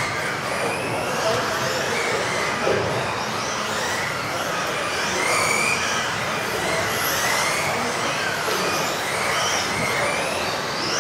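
Several electric off-road RC buggies racing together, their modified-class electric motors whining up and down in pitch as they accelerate and brake, over a steady rushing noise.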